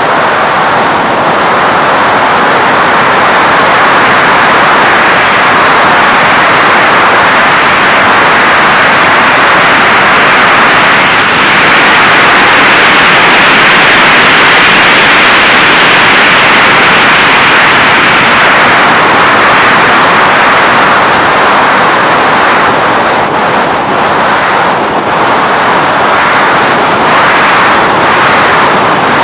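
Steady, loud rush of airflow and propeller noise picked up by a camera riding on an FPV Raptor 1.6 m RC plane in flight, swelling a little midway.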